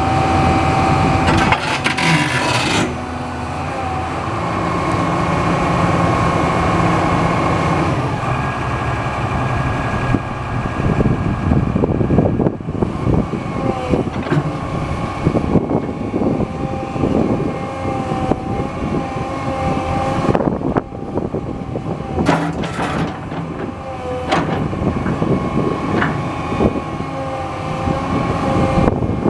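2004 Komatsu PW200 wheeled excavator's diesel engine running, with whining tones that waver in pitch and frequent short knocks and clanks.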